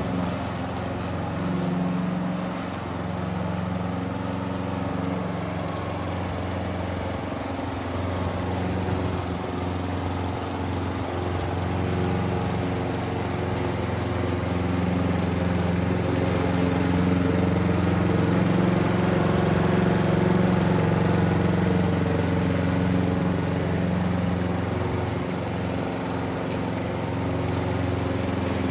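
Walk-behind petrol rotary lawn mower running steadily while cutting grass, its engine hum holding an even pitch. The level rises and falls a little as the mower moves about the lawn.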